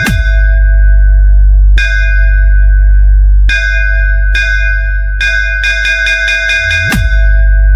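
DJ sound-check music: a ringing bell tone struck in single hits and quick rolls over a loud, continuous deep bass, with a bass pitch sweep near the end.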